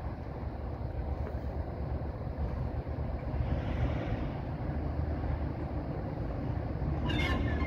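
Class 47 diesel locomotive's Sulzer twelve-cylinder engine running with a steady low rumble as it approaches, swelling briefly about four seconds in. A short, broken high-pitched squeal comes near the end.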